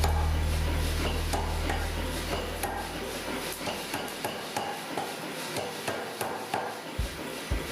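Blacksmith's hammer striking hot steel on an anvil while forging tongs, a steady run of blows about one to two a second. A low steady hum fades out over the first few seconds, and deeper thumps come in near the end.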